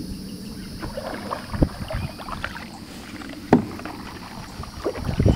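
Kayak paddles dipping and splashing through the water, with scattered small clicks and three louder sharp strokes: about a second and a half in, in the middle, and near the end.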